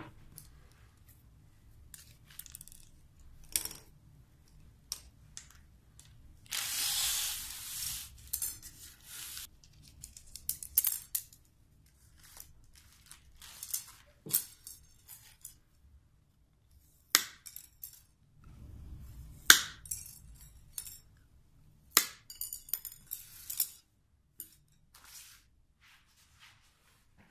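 Wooden grill sticks handled on a wooden workbench: scattered light clicks and taps as they are pulled out and laid down, and a plastic bag crinkling for about three seconds some seven seconds in. Later come a few sharp snaps as side cutters cut the sticks to length.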